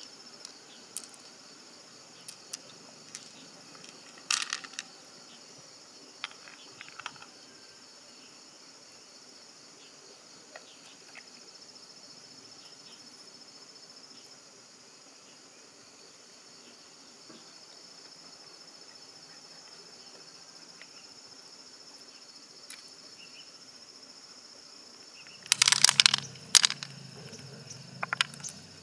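Steady high-pitched chirring of insects, with scattered light clicks and taps as a large freshwater mussel is worked open with a knife. Near the end comes a louder burst of handling noise as the mussel's flesh is pulled out.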